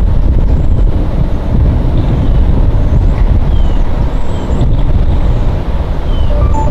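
Wind buffeting an outdoor microphone: a loud, irregular low rumble, with a few faint short high chirps above it.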